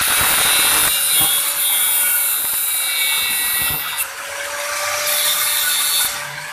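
Bench grinder grinding the edge of a steel disc-brake caliper bracket: a loud grinding hiss over the grinder motor's steady hum. The grinding breaks off about four seconds in as the bracket is lifted, comes back for about a second, then the grinder runs on more lightly near the end.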